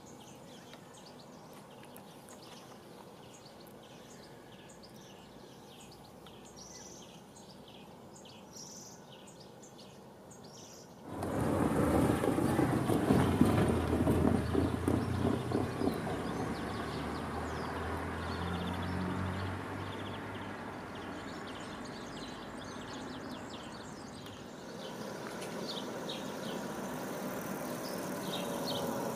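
Birds chirp faintly. About eleven seconds in, a passing train's rumble and wheel-on-rail clatter sets in suddenly and stays loud for several seconds. It fades, then builds again near the end.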